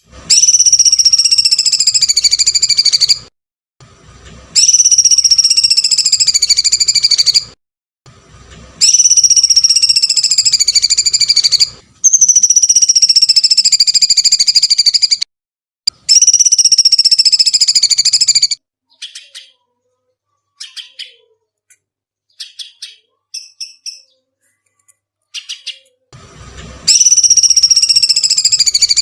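A bird giving long, shrill screeching calls of about three seconds each, each sliding slightly down in pitch. Five come in a row with short gaps between them, then a run of short chirps, then another long screech near the end.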